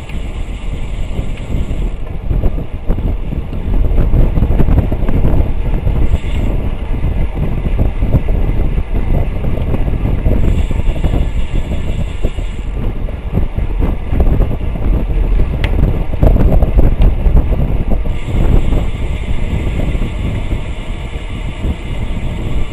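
Wind buffeting the microphone of a bike-mounted camera at racing speed, mixed with tyre and road rumble from road bikes on pavement. The level swells and eases throughout, loudest around four to five seconds in and again around sixteen to seventeen seconds in.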